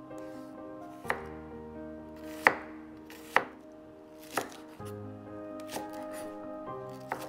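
Chef's knife chopping green onions on a wooden cutting board: a sharp knock roughly every second, fainter in the second half, over background music.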